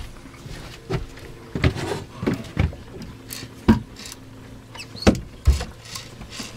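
A string of irregular knocks and bumps from people moving about a small fishing boat while a rod is held against a hooked shark, over a faint steady low hum.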